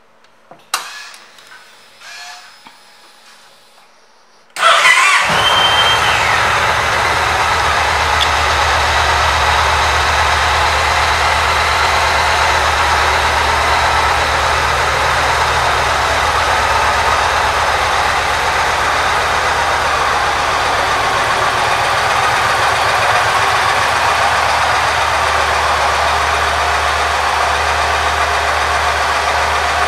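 A few faint clicks, then the 2008 Yamaha Stratoliner's air-cooled V-twin starts up about four and a half seconds in and settles into a steady idle.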